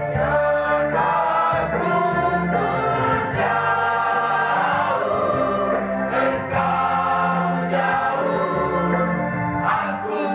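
Mixed school choir singing in several parts, accompanied by sustained electronic-organ chords; the organ's low notes drop out near the end.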